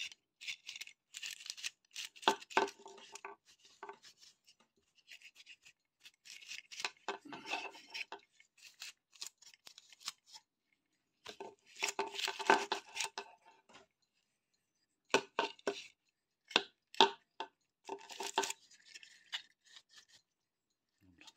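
Stop-start brushing and scraping strokes with small clicks, from hand-cleaning the parts of an old power supply.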